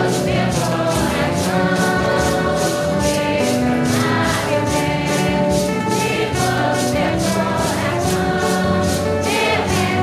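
A large congregation singing a Santo Daime hymn in unison, in Portuguese. Shakers rattle in a steady beat of about three strokes a second under the voices.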